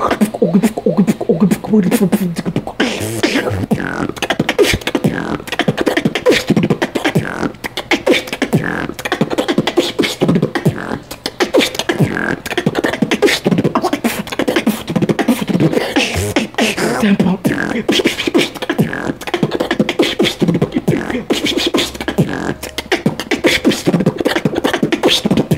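Solo human beatboxing: a fast, unbroken freestyle routine of mouth-made drum sounds, a dense stream of clicks and hits with short pitched vocal sounds mixed in.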